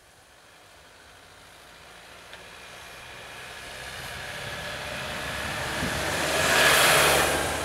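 A bus driving past close by: engine and tyre noise build steadily, peak loudly about seven seconds in, then begin to fade.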